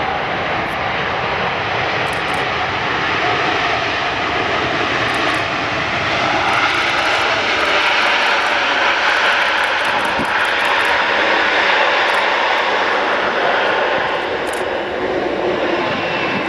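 Jet noise from a Boeing 777 freighter's two GE90 turbofans as it lands and rolls out, a steady rushing sound that grows louder through the middle and eases slightly near the end.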